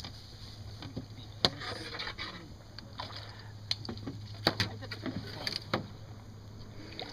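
Scattered light knocks and clatter of kayaks and paddles being handled at the water's edge, over a steady low hum.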